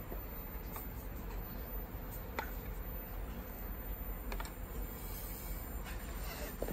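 Light metal clicks of an Allen key working the mounting bolts of a hydraulic disc-brake caliper, a few scattered ticks a second or more apart, over a steady low background hum.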